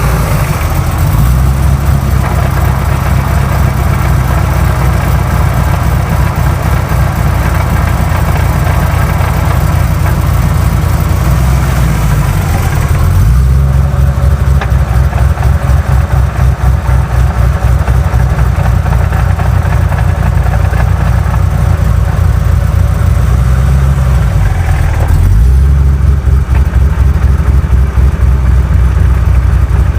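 2008 Ford Mustang GT's 4.6 V8 with manual gearbox running near idle with a rattle. The sound changes character twice, about a third of the way in and again near the end.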